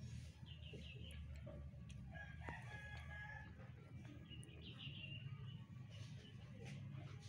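Faint rooster crowing: one long drawn-out call about two seconds in, with shorter high calls before and after it, over a steady low hum.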